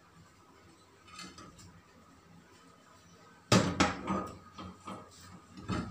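Kitchenware clattering at a gas stove: a sudden loud clatter of knocks about three and a half seconds in, followed by a few lighter knocks.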